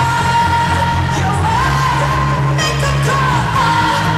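Female pop vocalist singing live over a full band with bass and drums, amplified through an arena PA and recorded from the audience.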